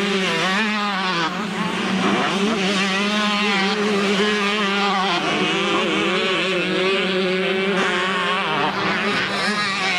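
Several 125cc two-stroke motocross bikes racing at once, their engine pitch rising and falling as riders open and close the throttle.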